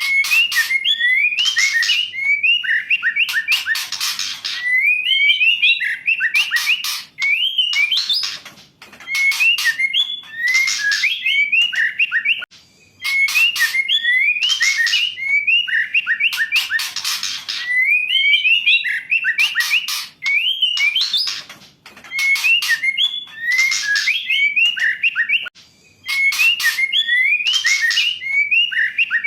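Female white-rumped shama singing: phrases of short whistled notes that slide up and down, interleaved with harsh rasping notes, repeated over and over every three to four seconds with brief pauses between.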